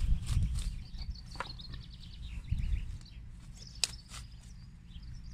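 Pig eating greens from a plastic bucket, chewing and snuffling with irregular low thumps and crisp clicks. Small birds chirp in the background.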